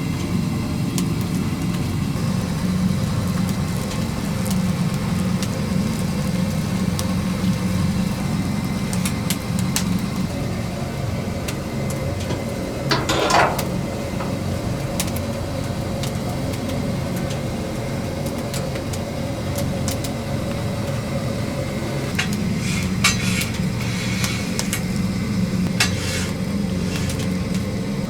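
Steady low machine hum with scattered clinks and clicks of dishes and utensils as food is prepared, and a brief wavering squeak about thirteen seconds in.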